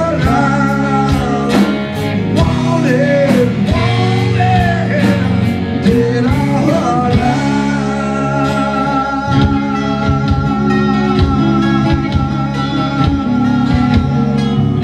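Live rock band playing an instrumental section: a lead guitar plays bent, sliding notes over drums, bass and rhythm guitar, then holds one long note with vibrato from about eight seconds in.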